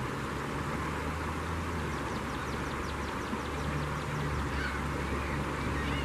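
A flock of gulls calling over the steady rush of river water, with a quick run of high, falling notes about two seconds in.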